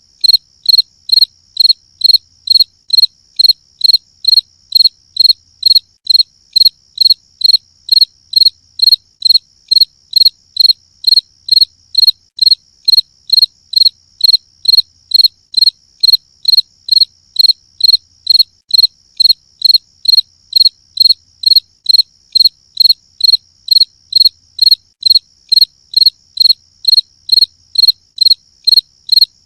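Cricket chirping in a steady, even rhythm, about two high-pitched chirps a second, with a fainter continuous high trill behind it.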